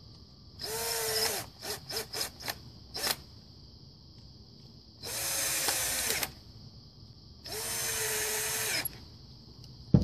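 Cordless drill-driver tightening the small screws of a twist-lock electrical plug. The motor runs three times for about a second each, near the start, in the middle and near the end, each run spinning up and winding down, with a few short trigger blips between the first two.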